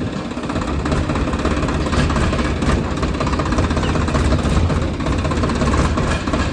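Tractor engine running steadily, a loud low rumble with a rapid rough chatter.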